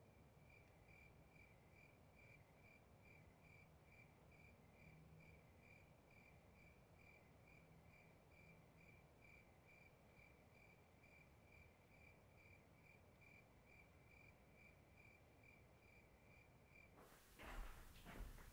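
Faint, steady chirping of a single cricket, an even pulse of about two to three chirps a second over a low hiss. Near the end it cuts off suddenly and gives way to a few soft knocks and footstep-like sounds in a room.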